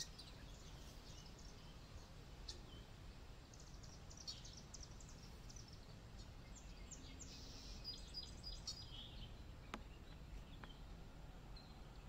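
Faint common starling song: scattered high chirps and clicks, with a short run of whistled notes about eight seconds in, over a faint low background hum.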